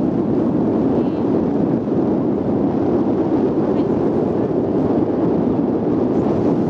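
Wind buffeting the camera microphone: a loud, steady rush of wind noise that masks everything else.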